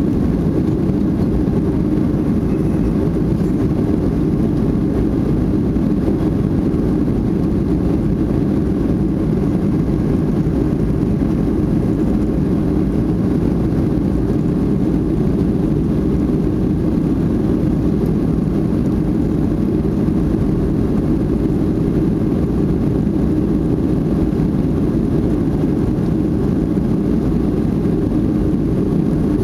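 Cabin noise inside a Boeing 737-500 airliner: its CFM56 turbofan engines and the airflow make a steady, even low rumble that neither rises nor falls.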